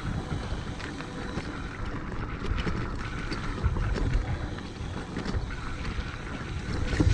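Mountain bike riding down a dirt singletrack: wind buffeting the microphone over the rumble of tyres on dirt, with many short rattles and clicks from the bike over the bumps.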